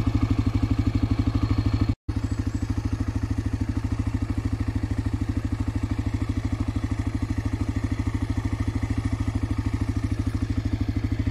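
Honda NX250 Dominator's single-cylinder four-stroke engine running steadily at low revs, with an even, rapid thumping pulse and no revving. The sound cuts out for an instant about two seconds in, then goes on unchanged.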